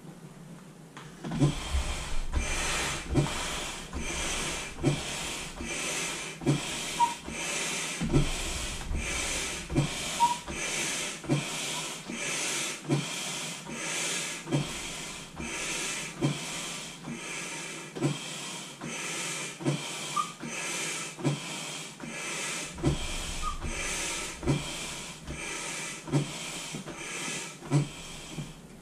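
Manual air pump inflating an inflatable swim ring: steady pumping strokes, each a low thump followed by a rush of air, just over one stroke a second, starting about a second in.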